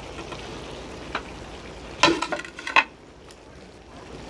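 Maggi noodles frying with vegetables in a kadhai with a faint steady sizzle, stirred with a metal spoon; a quick run of metal scrapes and clinks against the pan about two seconds in.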